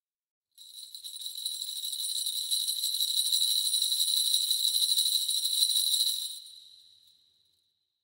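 Kagura suzu, the Shinto ritual bell tree of small metal crotal bells in tiers on a handle, shaken without a break: a dense jingling that starts about half a second in and swells over several seconds. It then stops, and the bells ring away over the last second or two.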